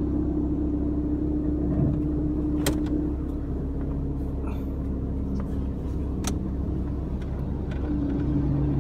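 Proton Saga FLX 1.3's engine idling in D with the CVT engaged, the handbrake on and the A/C running, giving a steady droning hum in the cabin that the owner calls really noisy and suspects comes from the engine mounting. The hum eases about three seconds in and comes back near the end, with two sharp clicks in between.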